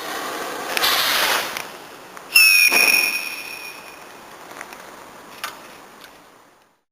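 A consumer firework hissing, then a shrill whistling effect starting suddenly about two seconds in and fading away over a couple of seconds, followed by a few faint pops.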